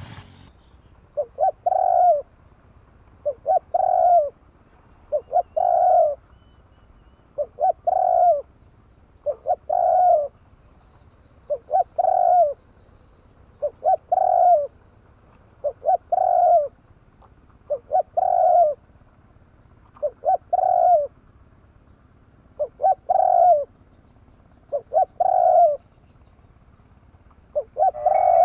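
Spotted dove cooing: a steady run of about fourteen short coo phrases, one every second and a half or so, each a couple of quick notes ending in a longer coo.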